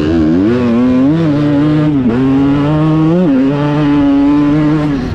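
Honda CR250 single-cylinder two-stroke motocross engine heard on board under hard riding. Its pitch rises and falls with the throttle, dips sharply twice (about two and three seconds in) and then holds steady.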